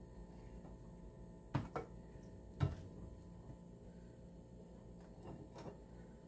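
Sharp clicks and knocks of a plastic serving spoon against a glass baking dish while food is scooped out: three close together between about one and a half and three seconds in, two fainter ones near the end, over a faint steady hum.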